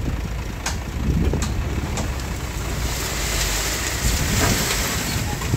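Komatsu crawler bulldozer's diesel engine running steadily with a deep rumble, with a few sharp clicks in the first two seconds. A rushing hiss swells in the middle and fades near the end.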